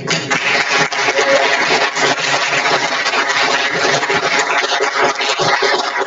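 Audience applauding in a lecture hall: a dense, steady patter of many hands clapping that starts just as the thanks are spoken.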